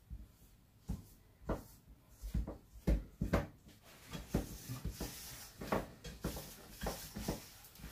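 Hands mixing and kneading flour-and-water dough in a bowl: irregular soft knocks and thumps, with some rubbing.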